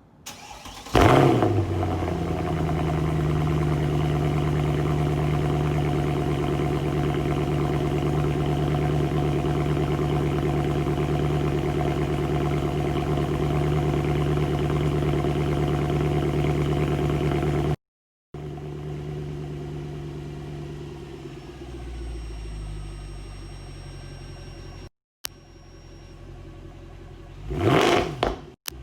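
BMW N54 twin-turbo inline-six starting about a second in with a brief flare of revs, then holding a steady fast idle. After a break it idles more quietly, and near the end it gives one short rev.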